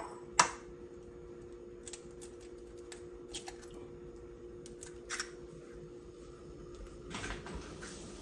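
An egg cracked sharply on the rim of a glass bowl about half a second in, followed by a few faint clicks and taps, over a steady hum.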